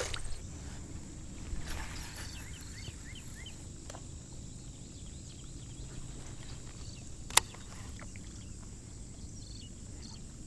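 Quiet outdoor background by a pond: a low steady rumble, a quick series of short bird chirps in the first few seconds, and one sharp click about seven seconds in.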